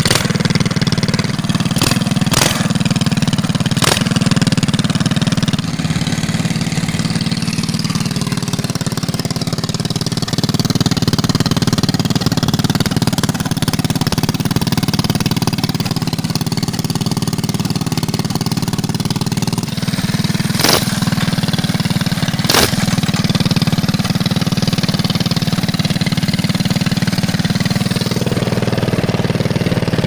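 Predator 212cc single-cylinder four-stroke engine on a pocket bike idling steadily. A few sharp clicks cut through it, several in the first few seconds and two about two-thirds of the way through.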